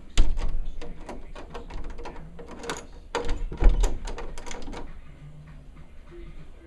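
A clatter of sharp clicks and knocks, with heavier thumps just after the start and about three and a half seconds in, dying away after about five seconds.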